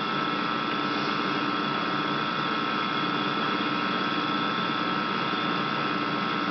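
A steady mechanical hum with a few held tones, unchanging throughout.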